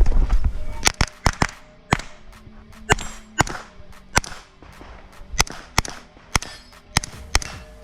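Pistol caliber carbine fired in a timed course of fire: about a dozen sharp shots, some in quick pairs and some single, spaced unevenly with short gaps between strings.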